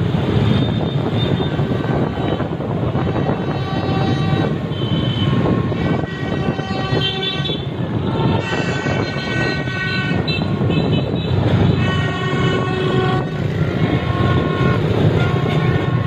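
Many motorbike horns beeping in short toots of different pitches, one after another, over the steady rumble of a mass of scooter engines and wind moving past: a crowd of riders honking in celebration.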